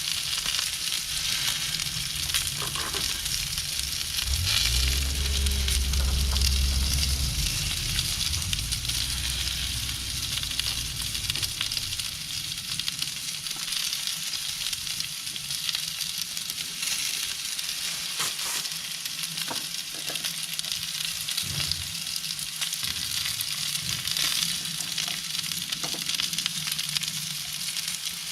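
Steak sizzling in an oiled cast-iron skillet: a steady frying hiss with scattered small pops. A low rumble rises under it for several seconds near the start.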